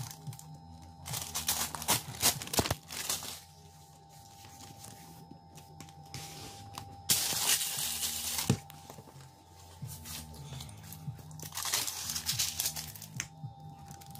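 Peel-and-stick vinyl floor tiles being laid by hand. There is paper crinkling and tearing as the backing paper is peeled off, and a rubbing, crinkling sound as a tile is pressed down with a wad of paper. It comes in three loud stretches: about a second in, around the middle, and near the end.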